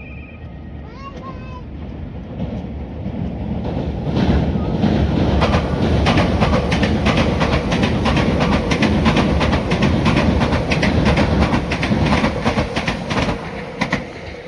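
A train passing close by: it grows louder over the first few seconds, then its wheels clatter over the rail joints in a fast, steady clickety-clack before it eases off near the end.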